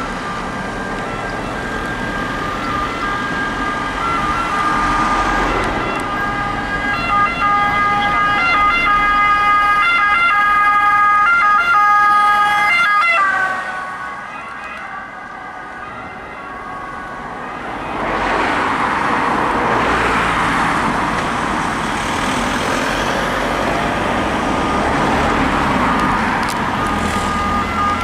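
Ambulance two-tone siren sounding as the ambulance approaches and passes, its pitch dropping about thirteen seconds in as it goes by. Then traffic noise rises, and the siren's alternating tones come back near the end.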